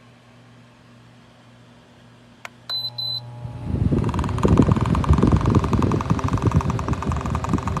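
Holmes dual 9-inch digital window fan switched on: a click and a couple of short high beeps from its control panel. The fan then starts up and runs with a loud, fluttering rush of air.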